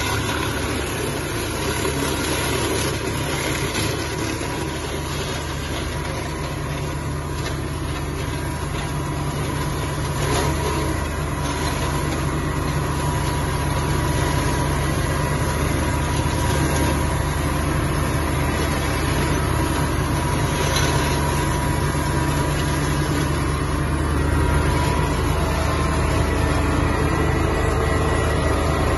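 Tractor engine running steadily under load, driving an AGF Garto offset flail shredder through dry weeds and grass. This is heard from inside the cab as an unbroken hum with a faint steady whine.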